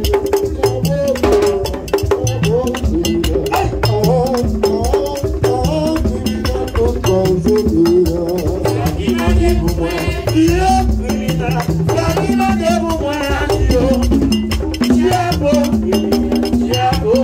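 Live Haitian Vodou ceremonial music: voices singing a wavering melody over a steady, dense beat of drums, a shaken rattle and a sharp struck percussion.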